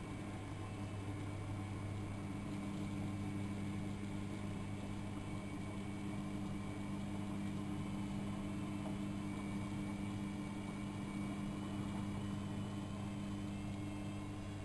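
AEG Electrolux Lavamat L6461 front-loading washing machine running steadily partway through a 95°C boil wash, giving a continuous low hum. Faint wavering higher whines come in near the end.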